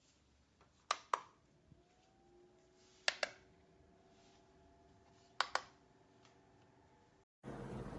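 Three sharp double clicks about two seconds apart, each a quick press and release of the small push button on a rechargeable USB desk fan. A faint rising tone after the first press is the fan motor speeding up. Near the end the sound cuts to a louder steady rushing noise.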